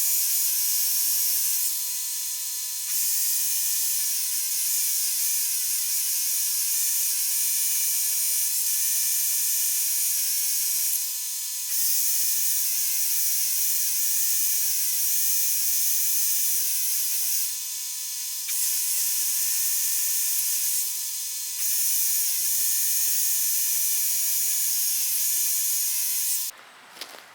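Electric power tool motor running at a steady high whine, easing off briefly four times, then cutting off sharply near the end.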